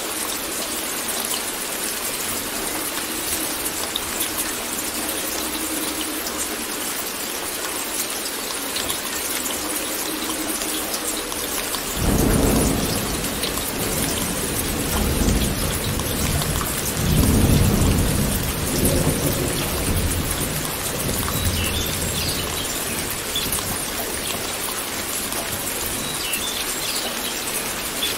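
Steady rain with a roll of thunder: a low rumble breaks in suddenly about halfway through, swells twice more, and dies away a few seconds later while the rain carries on.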